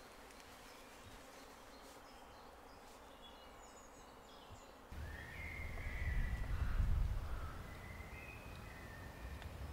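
Quiet woodland with faint bird chirps. About halfway through, wind starts buffeting the microphone with a low rumble that swells for a couple of seconds, while birds sing over it.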